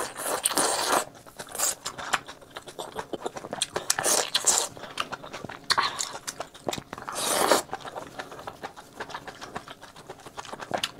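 Close-miked eating: a man biting and chewing a blistered green tiger-skin pepper and spicy seafood, with many small wet mouth clicks. Four louder noisy stretches of wet chewing, each half a second to a second long, come near the start, around four seconds in, around six seconds in and around seven seconds in.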